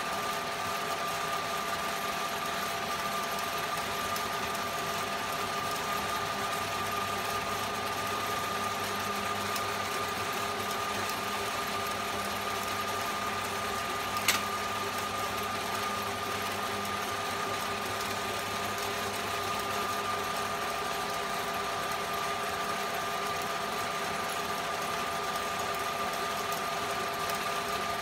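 Old Hahn & Kolb metal lathe running steadily, a constant mechanical whir with a steady whine over it. One sharp click about halfway through.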